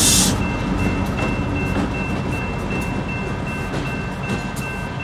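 Two EMD GP15-1 diesel locomotives, each with a 12-cylinder EMD 645 engine, rumbling as they pull away from the crossing, slowly getting quieter. Behind them the grade-crossing bell rings steadily.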